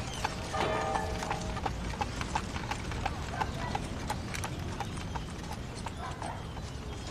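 Horse hooves clip-clopping at a walking pace, about three steps a second, with a short pitched call about a second in.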